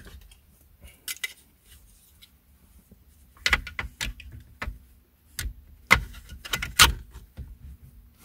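Sharp clicks and knocks of a black plastic headrest bracket being handled and pressed on the seat's metal headrest posts, coming in irregular clusters, the loudest about six to seven seconds in.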